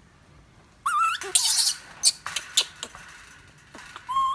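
Baby macaque giving short, high, whistle-like coo calls, one rising about a second in and a steadier one near the end. In between come a scratchy noisy burst and a few sharp clicks as it clambers on the chain-link fence.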